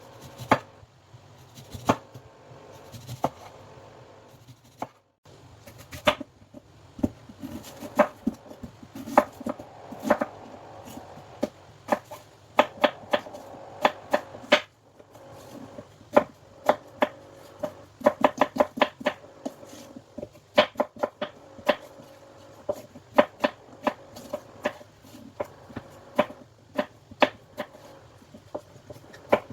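Knife chopping fruit on a cutting board: sharp knocks of the blade, irregular, with several quick runs of strokes.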